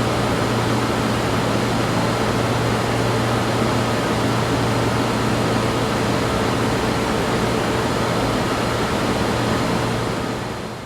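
Science-fiction laboratory ambience: a steady machine hum with a strong low drone and a few faint steady tones over an even hiss, fading out near the end.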